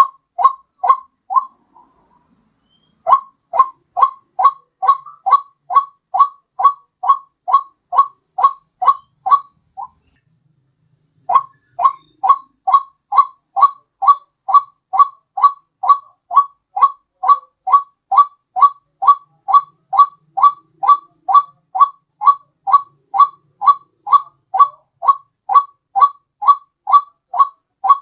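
White-breasted waterhen call repeated as a lure: short, loud, downslurred notes at about two to three a second in long runs, with two short breaks, one about a second and a half in and one about ten seconds in.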